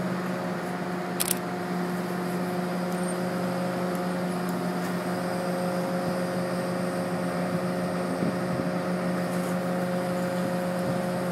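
Fire engine running at a constant speed, a steady hum with a few fixed higher tones over it. This is typical of a turntable ladder truck's engine driving its hydraulics while the ladder is raised.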